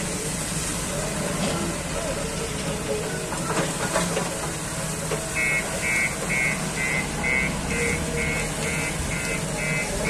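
JCB backhoe loader's diesel engine running steadily. From about halfway through, an electronic beeper sounds in a regular series, about two and a half beeps a second.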